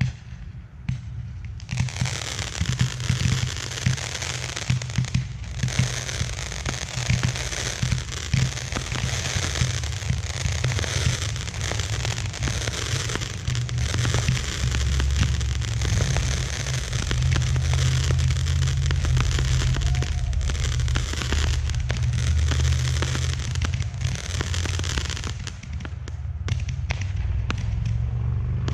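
A rack of Roman candles firing together: a dense, continuous stream of overlapping pops and crackle that starts about two seconds in, over a low rumble.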